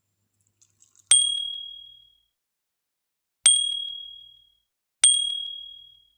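Three clear, high ringing dings, each struck once and dying away over about a second. They come about a second in, a little past the middle, and near the end.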